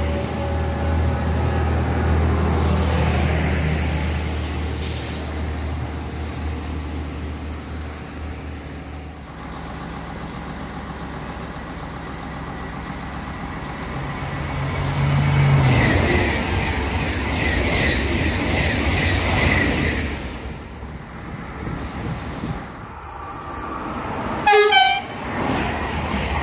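Trains at a station platform: a regional electric train hums steadily as it moves past, then another train approaches with rising rail noise. Near the end a train horn gives one short, wavering toot as a double-deck regional train passes close by.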